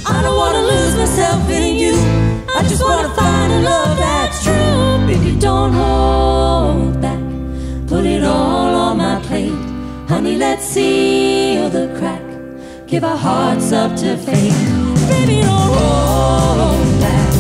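Live band performing a song: several voices singing over guitars, keyboard and drums. The band drops to a quieter passage about six seconds in, then builds back to full volume about thirteen seconds in.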